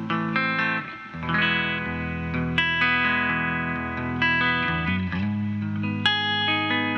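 Electric guitar played through a freshly biased 1987 Fender Twin Reverb tube amp: strummed chords that ring out and change every second or few, with sharp pick attacks and a bright, overtone-rich tone.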